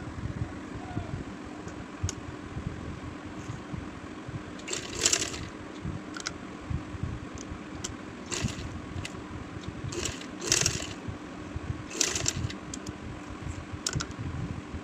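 Sewing machine running steadily, stitching a seam in thin cotton fabric, with a steady hum and fast rattle of the needle. A few brief louder brushing noises come as the cloth is shifted by hand.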